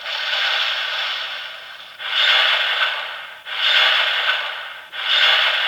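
Bandai DX Nichirin Sword toy playing its Water Breathing Second Form 'Water Wheel' sound effect through its small built-in speaker: four rushing sword-swing whooshes, each starting suddenly and fading, standing for repeated fast slashes.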